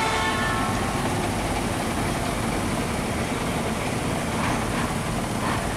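Engine of a small tugboat running steadily under load as it tows a barge.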